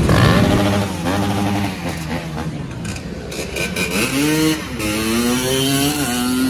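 A dirt bike's engine accelerating past, its note climbing, dropping back briefly twice and climbing again, over the running of other motorcycle engines.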